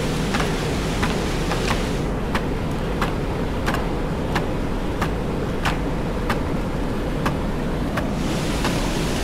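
Steady rush of water flowing through a dam channel, with a light, regular clicking about three times every two seconds on top.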